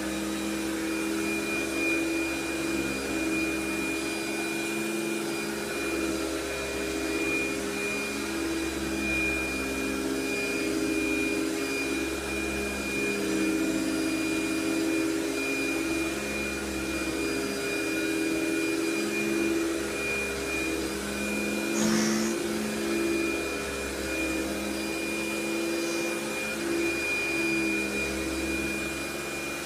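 1981 Eureka Rotomatic Power Team canister vacuum (model 1743A) running with its power nozzle while vacuuming carpet: a steady motor hum with a high whine, its lower tones shifting slightly as the head moves. A brief knock about 22 seconds in.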